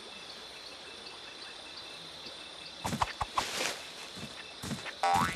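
Night jungle ambience: a steady high insect trill with short chirps repeating at an even pace. From about three seconds in come a few short rustling knocks, and near the end a brief high squeaky call.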